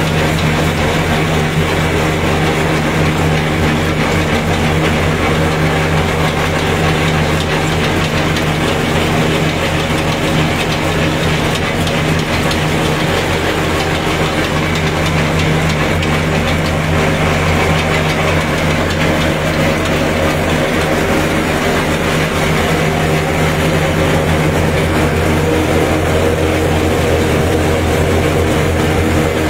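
Tractor-driven groundnut shelling machine (decorticator) at work: the tractor engine and the shelling drum run together as one loud, steady mechanical drone with a dense noisy clatter over it. It holds unchanged throughout.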